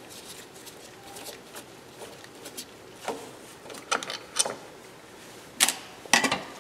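Small metal clicks and taps of a screwdriver backing out the last screw from an Espar coolant heater's housing, then two sharp clacks near the end as the screwdriver is put down on the bench.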